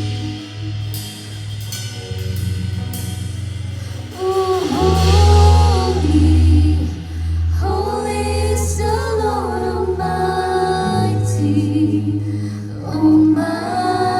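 Contemporary worship song: a band with drum kit and sustained bass and chords, with sung vocal lines coming in about four seconds in and again later.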